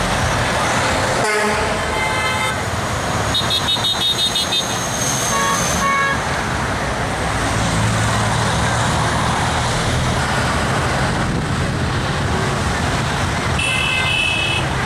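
Steady passing road traffic with car and truck horns honking at intervals: a horn blast about a second in, a run of quick pulsed toots a few seconds in, two short beeps soon after, and another horn near the end. They are honks from passing drivers answering the roadside protest signs.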